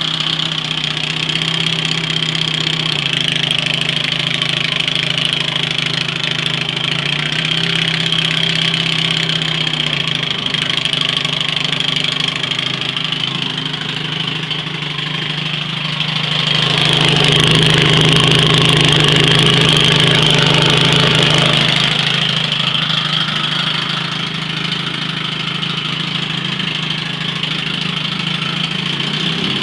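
1972 Johnson 25 hp two-stroke outboard motor running in a test tank at a steady idle, freshly rebuilt and running smoothly. About halfway through it is throttled up for about five seconds, then eased back to idle.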